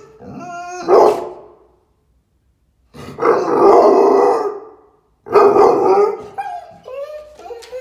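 American Staffordshire Terrier barking in excitement: rising whines leading into a sharp bark about a second in, then two long, loud, drawn-out howling barks, and whining again near the end.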